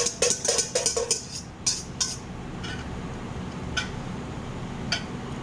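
Wire whisk clinking and scraping against a stainless steel mixing bowl: a quick run of metallic taps in the first second, then a few scattered taps. A steady low hum runs underneath.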